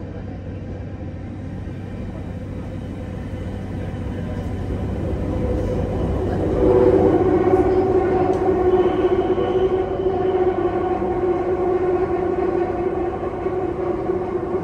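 A train running: a low rumble that grows louder over the first half, then a steady pitched hum about six and a half seconds in that holds on.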